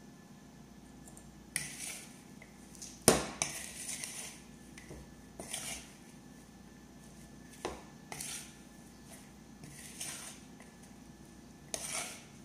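Shredded raw cabbage being tossed and mixed by hand in a glass bowl: crisp rustling, crunching swishes every second or two, with one sharp clink against the bowl about three seconds in.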